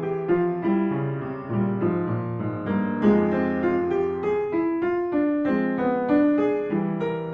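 Background piano music playing a gentle, flowing melody.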